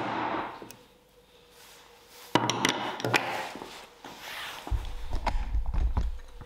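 A single sharp mallet blow on a Trend corner chisel, driving it into the corner of a pine frame. About two and a half seconds in comes a burst of clicks and scraping as the chisel is worked free of the wood, and a low rumble near the end.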